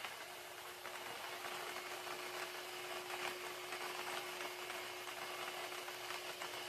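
Lottery ball-draw machine running: a steady motor hum under the continuous clatter of numbered balls tumbling about in its chamber, with balls dropping into the outlet tubes.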